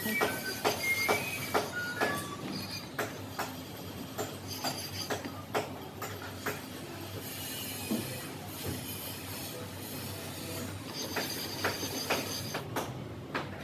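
Irregular metal knocks and clanks from metalworking, several a second near the start and sparser after, some with a short ring.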